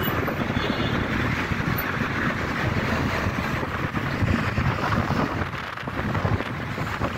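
Wind blowing across a phone's microphone, a steady rough noise with a brief dip a little before the end.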